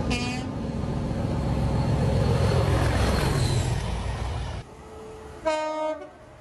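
A horn blast cuts off at the very start, then a train passes with a heavy low rumble whose pitch slides downward. About four and a half seconds in there is an abrupt cut to a quieter scene, where a train horn gives one short, loud toot.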